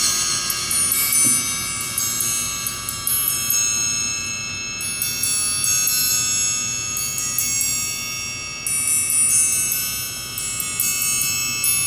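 Orchestral triangle struck again and again with a beater, its high, bell-like tones ringing on and overlapping from one strike to the next.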